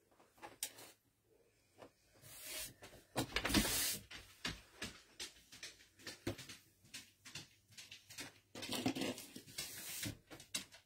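An irregular string of clicks, knocks and rustling, loudest in a longer rustle about three to four seconds in.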